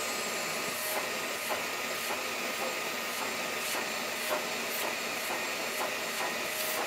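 Homemade CNC router milling an aluminium plate: a steady hiss from the spindle and cutter with a thin high whine, and light ticks about every half second.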